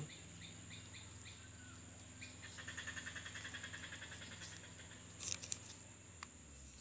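Faint garden ambience: a steady high insect whine over a low hum, with a rapid pulsed trill of about seven pulses a second lasting a couple of seconds mid-way. About five seconds in comes a short crinkle of the plastic grafting bag being handled.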